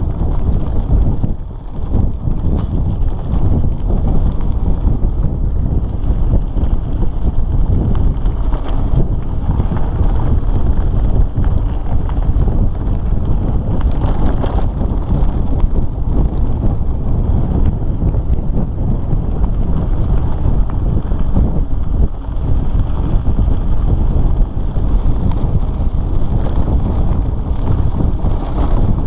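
Wind buffeting the microphone over the steady crunch and rattle of a loaded bicycle rolling along a gravel road, its tyres and frame jolting on the loose surface.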